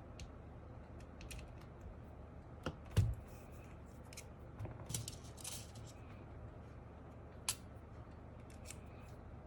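Scattered small metallic clicks and taps of a screwdriver working a stiff screw out of a keyboard's PCB and plate, with a louder knock about three seconds in and a sharp click near the end.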